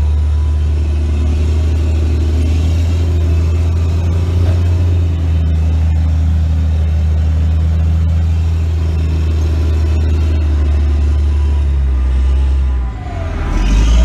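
Steady, loud low drone of heavy diesel engines heard from inside a truck cab, with a John Deere self-propelled forage harvester working right alongside. Near the end the drone dips briefly, and a short whine falls and rises again.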